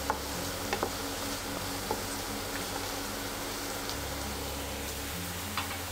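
Chopped onions sizzling as they fry in ghee in a pan, stirred with a wooden spatula, with a few light scrapes and taps of the spatula.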